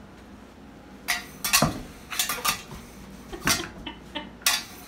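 Metal muffin tin clattering and scraping on a carpeted floor as a dog noses at it, working tennis balls out of the cups to get at treats underneath. Quiet for about the first second, then a run of sharp clanks and rattles.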